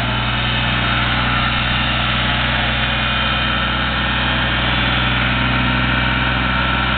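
Yanmar 226D compact diesel tractor engine running steadily as the tractor drives across grass, its level even after rising slightly in the first second.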